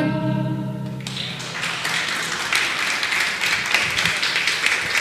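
The final piano chord of a tango song rings out and dies away, then audience applause starts about a second in and carries on steadily.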